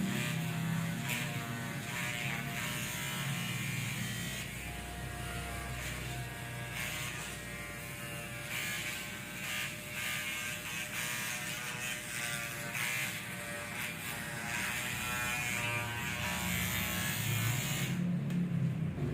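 Electric shaver running with a continuous buzz as it is worked over a customer's scalp during a head shave.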